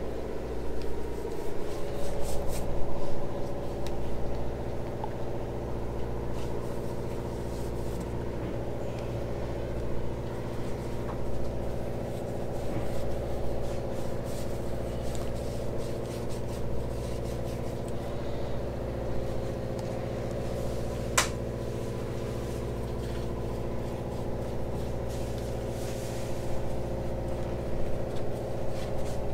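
Steady mechanical hum of running shop machinery, with several fixed tones, plus a few light taps and one sharp click about 21 seconds in.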